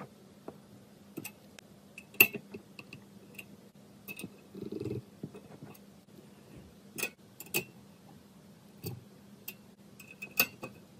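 Hex key turning small screws in a metal fan guard: scattered sharp metallic clicks and ticks, a second or two apart, with a brief soft rubbing noise about four seconds in.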